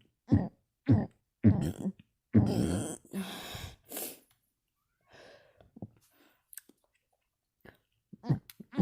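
A person burping with the mouth closed: four short burps about two a second, then one longer burp followed by a breathy exhale. A few seconds of only faint small sounds follow, and the short burps start again near the end.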